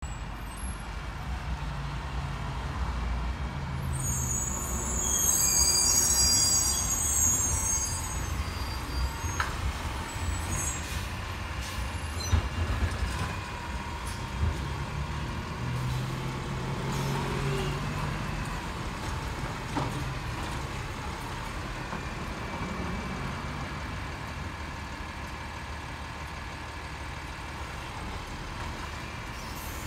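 Automated side-loader garbage truck working nearby: its diesel engine rumbling steadily and revving up twice, a loud hiss of air brakes about five seconds in, and a few clanks as carts are lifted and tipped by the hydraulic arm.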